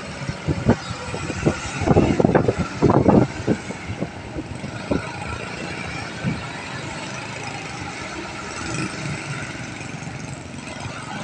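Kobelco SK200 hydraulic excavator's diesel engine running steadily while the upper structure swings around. A series of knocks and thumps sounds during the first few seconds, thickest around two to three seconds in, then the engine hum carries on alone.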